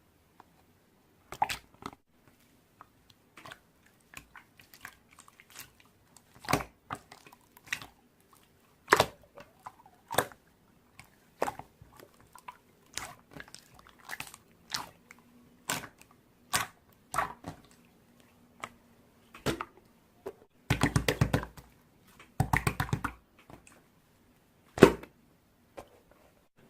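Slime being squeezed and pressed by hand: irregular sticky clicks and pops, with two short runs of rapid crackling about three-quarters of the way through.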